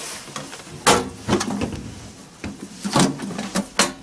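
Blue sheet-steel parts box being handled: a series of sharp metal clunks and knocks as the closed box is shifted and lifted off the table, the loudest about a second in.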